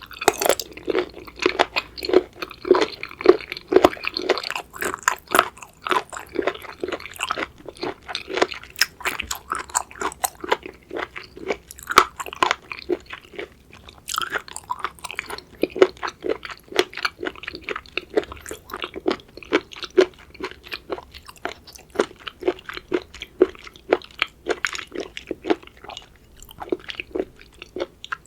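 Close-miked chewing of raw seafood: wet, crunchy bites in a steady chewing rhythm of sharp clicks and squelches.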